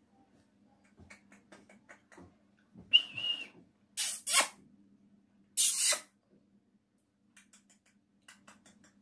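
Indian ringneck parakeet calling: a brief whistled note about three seconds in, then two loud, harsh screeches around four and six seconds, with soft clicks before and after.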